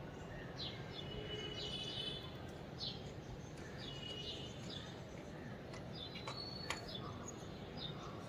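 Small birds chirping: repeated short, high, downward-sweeping notes and a few brief held whistles, over a steady low background rumble. A single sharp click comes near the end.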